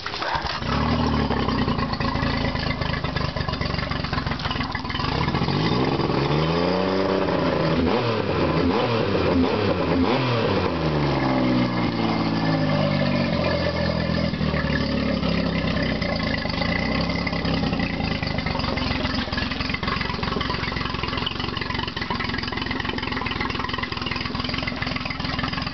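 Mercury 40 hp four-stroke tiller outboard engine running, picking up just after the start. Its revs rise and fall several times in the middle, then it settles to a steady idle.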